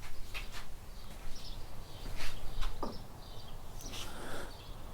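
Faint scattered clicks and taps of metal hand tools being handled, as a punch is set up against a sheared pin in a mower's wheel shaft.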